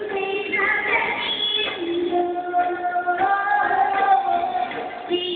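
A female vocalist singing a Malayalam devotional song into a microphone, holding long notes, over instrumental accompaniment.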